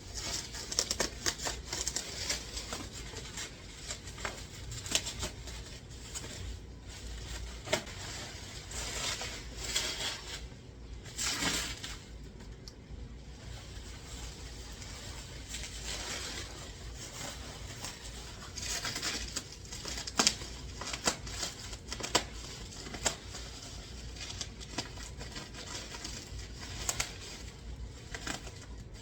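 A taped and glued cardboard package being opened by hand with scissors: irregular snips, clicks and knocks, with packaging rustling and tearing now and then.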